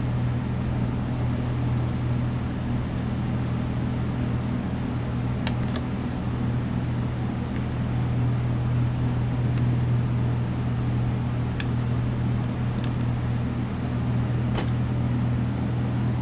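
Steady low mechanical hum of a running motor, unchanging throughout, with a few faint light clicks.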